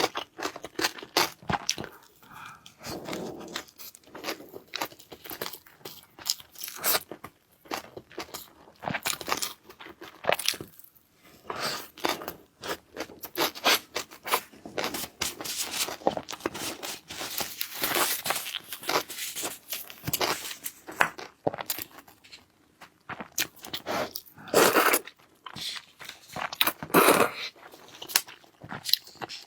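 Close-miked eating: irregular chewing, crunching and tearing of food in quick strokes, with a few longer wet noisy stretches about two-thirds of the way through and near the end.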